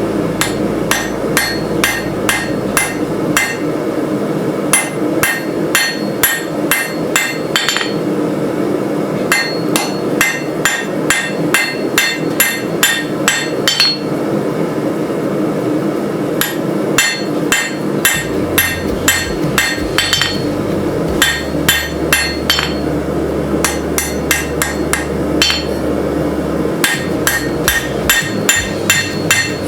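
Hand hammer striking hot steel on an anvil at about three to four blows a second, in runs of several seconds broken by short pauses: the rough forging of a sword guard.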